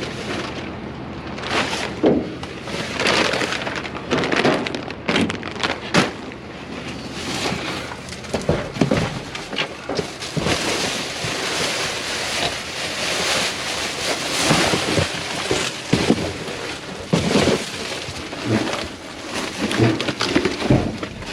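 Rummaging through a dumpster: trash bags and packaging rustle and crinkle, and items knock and clatter irregularly.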